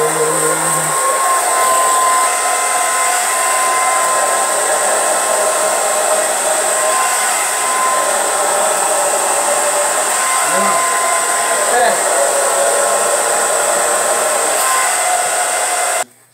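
Handheld hair dryer blowing steadily, a loud rush of air with a steady whine in it, drying long hair. It cuts off suddenly near the end as it is switched off.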